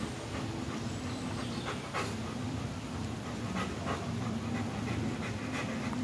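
German shepherd dog panting steadily.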